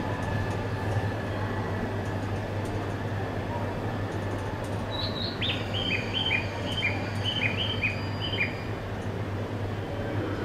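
A steady low hum with station noise throughout. From about five seconds in, a bird chirps a quick run of about a dozen short, falling notes, alternating between two pitches, for about three seconds.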